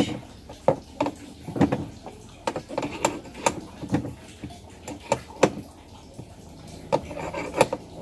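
Metal wrench clicking and knocking on the centre bolt of a top-load washing machine's pulsator as the bolt is turned loose: a string of irregular sharp clicks.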